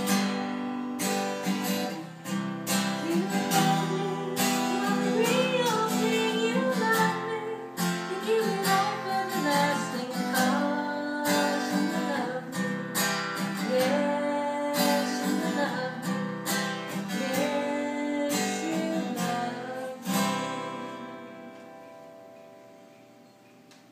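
Acoustic guitar strummed in chords, with a voice singing a melody over it. About twenty seconds in a final strum rings out and fades away, closing the song.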